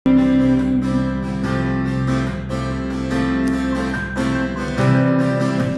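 A song with strummed acoustic guitar over deep bass, played by a Samsung HW-N450 soundbar and its subwoofer and picked up by a microphone in the room. The bass drops away near the end.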